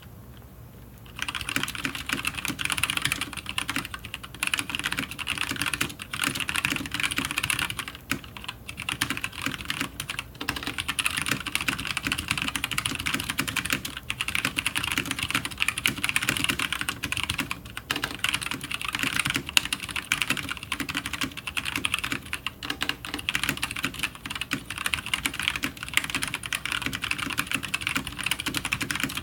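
Teamwolf Zhuque mechanical keyboard with Gateron Yellow linear switches and EnjoyPBT keycaps, typed fast and continuously at about 100 words per minute: a rapid, dense clatter of keystrokes. It starts about a second in, with a few brief pauses.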